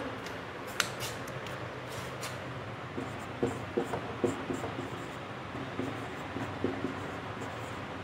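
Marker pen writing on a whiteboard: short scratchy strokes, mostly from about three seconds in, with a single click about a second in.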